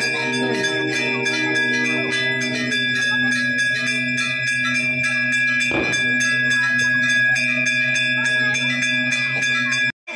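Temple bells rung rapidly and continuously, the strikes blending into a steady metallic ringing. The ringing stops abruptly near the end.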